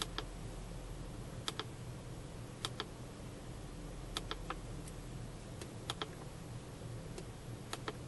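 Button presses on a Snap-on Solus Pro scan tool's keypad: about a dozen sharp plastic clicks, often in quick pairs, as the menus are stepped through. Under them is a steady low hum from the 2003 Ford Taurus's 3.0-litre 24-valve V6 running at idle.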